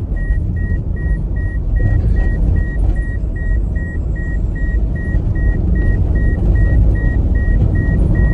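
Car moving on a road, heard from inside the cabin: a steady low rumble of engine and tyre noise, with an in-car warning chime beeping rapidly and evenly, about three short high beeps a second.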